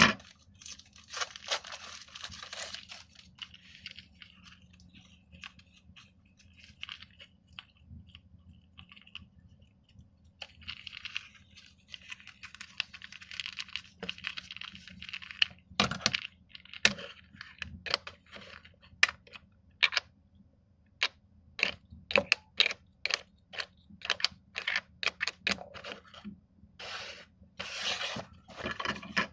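Plastic wrapping crinkling and tearing as it is pulled off stacks of sport-stacking cups, followed by a long, irregular run of sharp clicks and taps as the hard plastic cups are handled.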